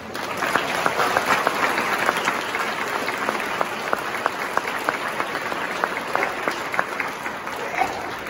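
Church congregation applauding, a dense clatter of many hands clapping that fades near the end.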